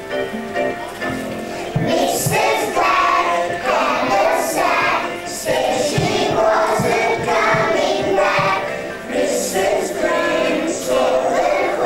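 A group of kindergarten-age children singing together as a choir, the singing getting louder about two seconds in.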